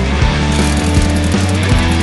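Background rock music with held bass notes and a steady drum beat.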